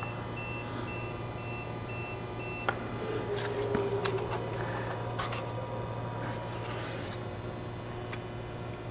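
Five-line laser level beeping in an even pattern about twice a second, stopping with a click about two and a half seconds in. Then come light clicks and rustles as the laser is handled, over a low steady hum.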